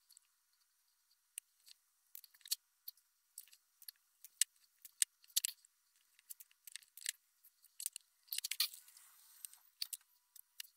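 Irregular light clicks and small metallic rattles from hands working on a small lithium-ion battery pack, its wires and loose parts.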